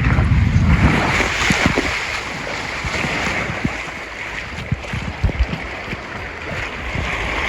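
Water rushing down a water-park ring slide, with wind buffeting the microphone, strongest in the first second.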